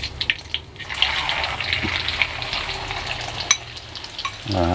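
Beaten egg hitting hot oil in a wok and frying, a dense sizzle and crackle that jumps up about a second in as the egg goes in. A few spoon clinks against the bowl, and a short voice sound near the end.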